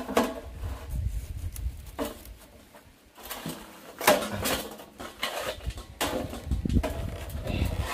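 Close-up bites and slurps of juicy watermelon flesh, a few separate sharp bites, the loudest about four seconds in.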